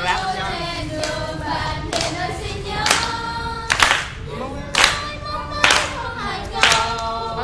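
A group of voices singing a song together, with hand clapping in time to it; the claps come strongly about once a second from about three seconds in.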